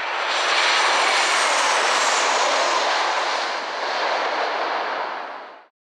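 Jet airliner passing low overhead on its landing approach: loud, rushing jet engine noise with a faint high whine that drifts slightly down in pitch. It cuts off abruptly near the end.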